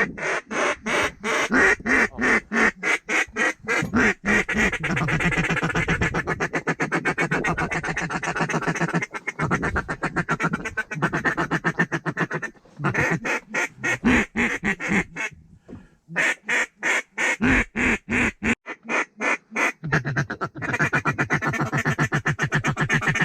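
Duck call blown by a hunter: a long, loud run of quick quacks, several a second, broken by short pauses, calling ducks in to the decoys.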